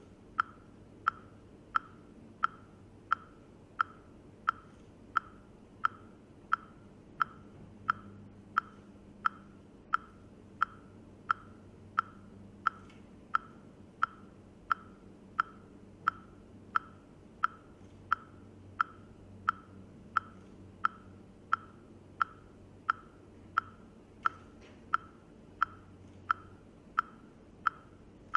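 Metronome-like ticking at an even beat of about two ticks a second, each tick a short, bright, pitched click, keeping time for the dance.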